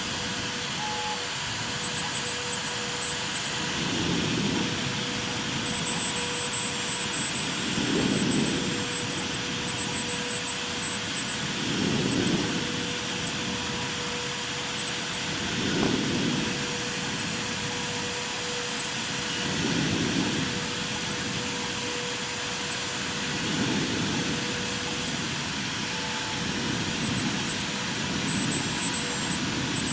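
CNC router spindle running with a steady high whine while engraving MDF, and a lower rumble that swells about every four seconds as the machine works back and forth.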